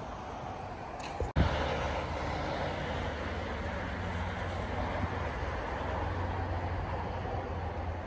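Steady low rumble of road traffic under a general outdoor hiss, with a sudden break and click about a second in where the sound cuts.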